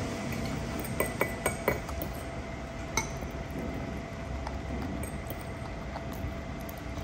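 Metal fork clinking and tapping against a small ceramic bowl while food is scooped: a quick run of about four light clinks about a second in, another about three seconds in, over a steady low hum.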